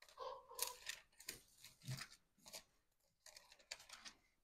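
Faint, crisp rustling of Bible pages being leafed through and turned, a string of short rustles lasting about four seconds.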